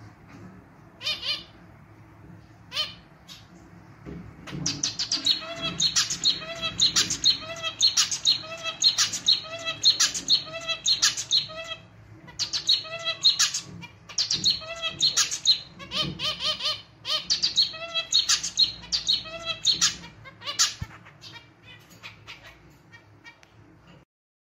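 Male zebra finch singing: a few separate calls, then from about four seconds in three bouts of quickly repeated song notes with a nasal, clarinet-like and somewhat out-of-tune sound. The song thins out near the end and stops suddenly.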